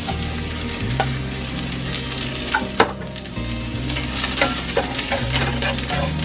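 Food sizzling as it fries in hot oil in a wok, stirred with a utensil that clicks and scrapes against the pan, with one sharp knock about three seconds in.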